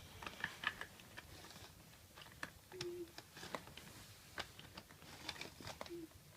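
Faint, irregular clicks and taps of plastic Imaginext toy parts being handled and worked.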